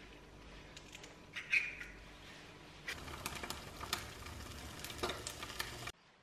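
Eggs frying in oil in a nonstick pan, sizzling with many small crackling pops. A few faint clicks come first, the sizzle grows denser about three seconds in, and it cuts off suddenly near the end.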